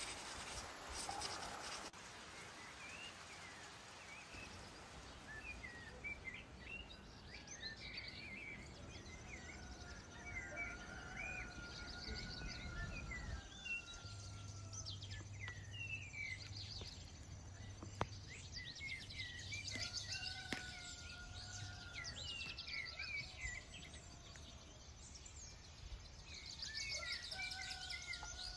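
Birds chirping and singing over a steady background hiss, with a longer drawn-out call repeated three times. A single sharp click about halfway through.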